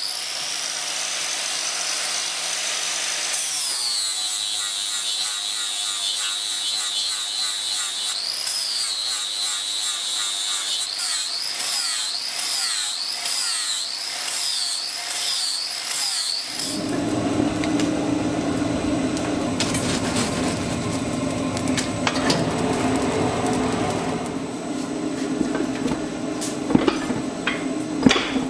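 Angle grinder grinding metal: a high whine whose pitch drops when the disc bites, then wavers up and down under changing load. A little past halfway it cuts to the steady low rush of a gas forge burner, with a few sharp clinks near the end.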